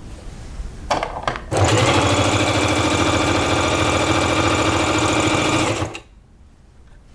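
Necchi Q132A sewing machine stitching a straight stitch through a thick stack of folded denim. A few clicks come about a second in, then the machine runs at a steady, fast rhythm for about four seconds and stops abruptly.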